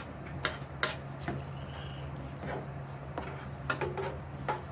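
A few sharp clacks and knocks of cookware being handled at the stove, over a steady low hum.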